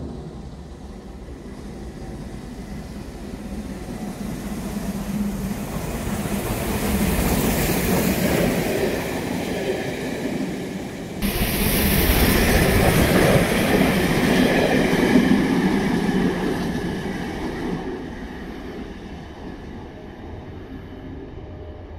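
LMS Jubilee Class steam locomotive 45596 Bahamas and its train passing through the station, with wheels clattering on the rails. The noise builds as the train approaches and turns sharply louder and brighter about eleven seconds in as the engine draws level. It then fades away over the last few seconds.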